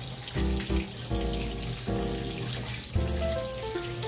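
Water running from a tap into a kitchen sink, a steady hiss, under background music.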